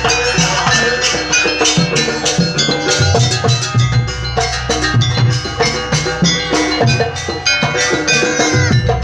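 Live jaranan accompaniment: drums and ringing metal gong-chimes play a fast, dense, steady rhythm, with a deep low tone that swells and fades in stretches.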